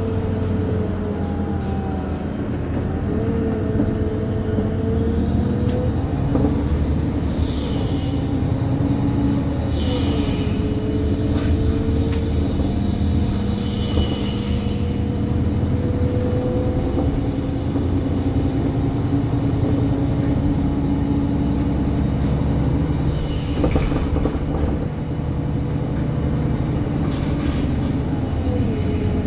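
Cabin noise of a 2018 MAN Lion's City CNG city bus under way: a loud, steady drone from its natural-gas engine and drivetrain, with a whine that slides up and down in pitch as the speed changes. Scattered clicks and rattles come from the plastic interior trim, and a few brief hisses sound, which the rider puts down to the gas feed.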